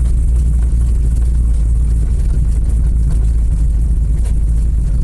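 Car engine and road noise heard from inside a moving car: a steady, loud low drone.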